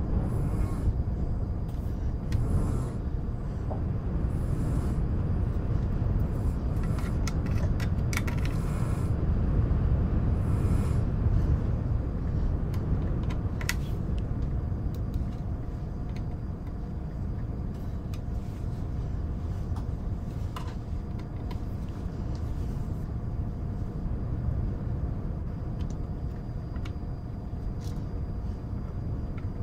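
Steady low rumble of a wind and white-noise background, with scattered light clicks and taps of cardboard jigsaw puzzle pieces being sorted and placed, a small cluster of them about seven to nine seconds in.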